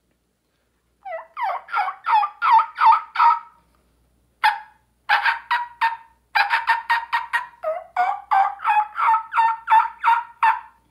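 A man imitating wild turkey yelps with his bare voice, no call in his mouth and a hand cupped to his lips. The notes each break from high to low; a first run of about half a dozen, one lone note, then a longer, quicker run of yelps.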